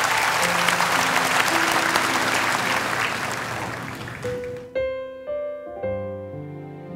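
Audience applause, with a soft keyboard intro of held notes starting underneath. About two-thirds of the way through the applause stops suddenly and clear piano notes from the keyboard ring out, opening a slow ballad.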